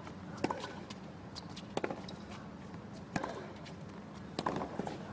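Tennis rally on a hard court: four sharp racket strikes on the ball, about one and a half seconds apart, with lighter ticks of ball bounces and footwork between them, over a low steady crowd hum.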